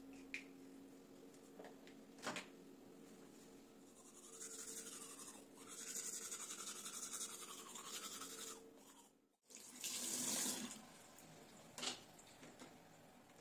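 Manual toothbrush scrubbing teeth: a scratchy, brushy hiss lasting about four seconds, starting around four seconds in. It is followed by a short, louder rush of water at the bathroom sink, with a few light plastic clicks from handling the toothpaste tube near the start.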